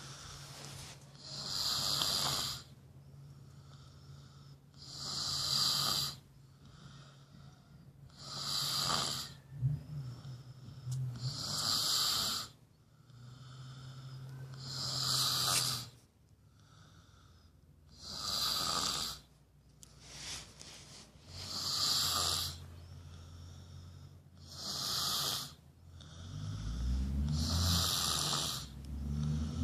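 A woman snoring in her sleep, a breathy snore about every three seconds, about nine in all.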